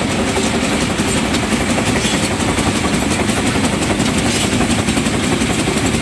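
Match factory machine running with a steady, loud mechanical noise, with the loose wooden matchstick splints in its trays rattling.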